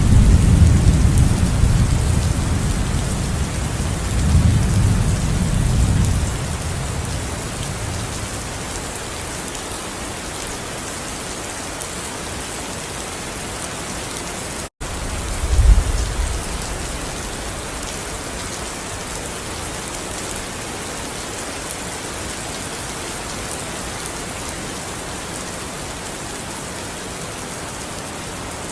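Steady rain falling with a constant hiss. Thunder rumbles low for the first six seconds or so and dies away. About fifteen seconds in the sound cuts out for an instant, then a short low thunder rumble follows.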